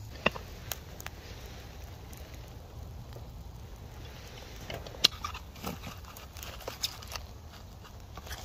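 Wood fire crackling, with scattered sharp pops and clicks, the loudest about five seconds in.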